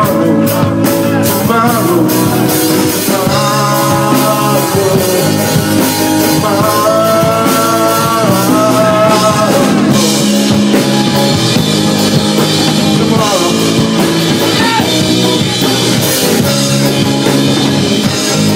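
Live blues-rock band playing: electric guitar and drum kit, with a held lead melody line on top.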